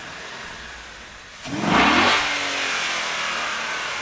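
Ford 5.0 Coyote V8, fitted with a twin cold-air intake, revved once: a sudden, loud blip about a second and a half in, then the revs falling away slowly.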